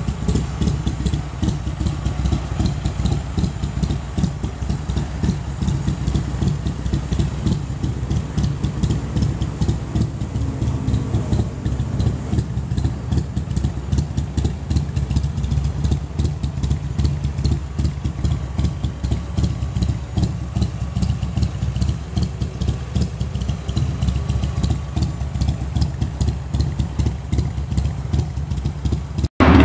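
Buell motorcycle's V-twin engine idling steadily, with a fast pulsing exhaust beat. Just before the end the sound breaks off for an instant and returns louder.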